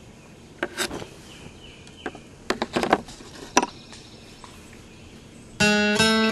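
A few short knocks and clicks of the wood-clad fire piston and other gear being handled and laid down on a wooden board, over a faint steady hiss. Strummed acoustic guitar music starts near the end.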